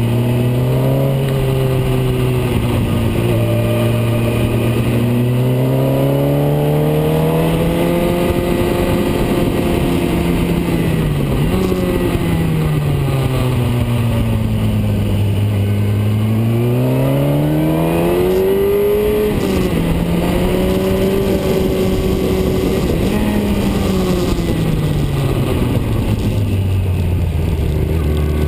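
Car engine pulling hard through a run of bends, its revs climbing and falling several times, with a quick drop in pitch about two-thirds of the way through, as on a gear change.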